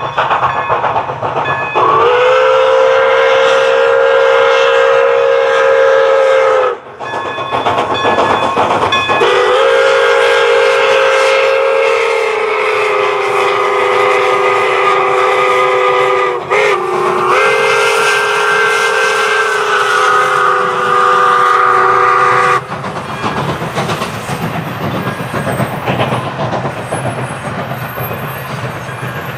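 Pere Marquette 1225's steam whistle blowing the grade-crossing signal: two long blasts, a very short toot and a final long blast, each chord sagging slightly in pitch. Then the train runs past with a steady rumble and clatter of wheels on rail.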